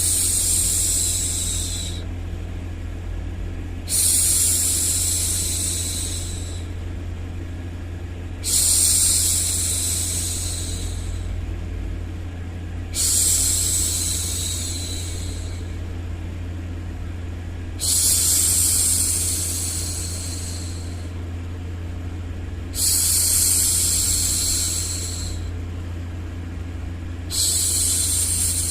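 A woman's voice shushing 'shhh' to hush a baby, about every four and a half seconds; each shush starts sharply and fades over two to three seconds. Underneath runs a steady, low-pitched white-noise rumble.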